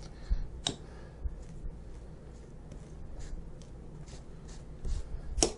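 Butter knife spreading softened butter over rolled-out dough: soft scraping strokes, with a sharp tap just under a second in and another near the end.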